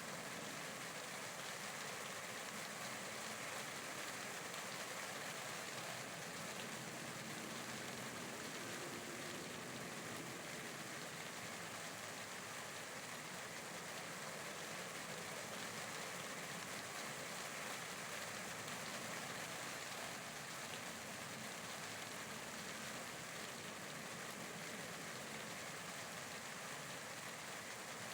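Steady rain falling, an even hiss of many drops with no pauses or single drop sounds standing out.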